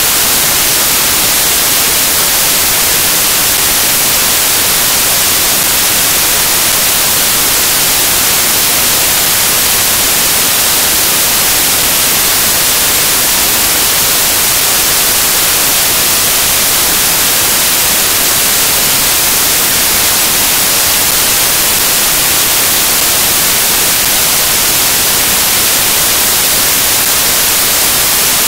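Loud, steady static hiss, strongest in the high range and unchanging throughout, with no music or voices under it: the sound of a dead or faulty audio feed.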